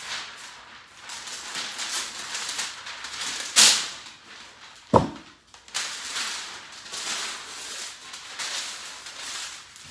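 Brown kraft masking paper crinkling and rustling as it is pulled off the roll and handled, in repeated swells. About three and a half seconds in there is a short loud rip, and just after it a sharp knock.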